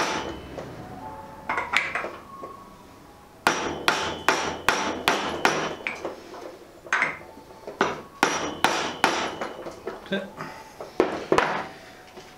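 Hammer blows on a steel socket used as a drift, tapping a new oil seal down into a motorcycle fork slider. The strikes come in quick runs of a few, about two or three a second, with short pauses between, and each gives a short metallic ring.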